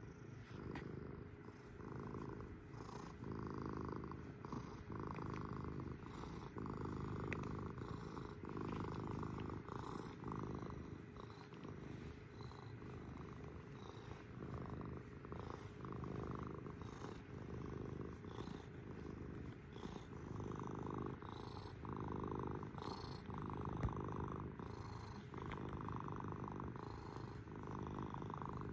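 Domestic cat purring steadily, the purr swelling and easing in a slow rhythm about every second or two as the cat breathes in and out.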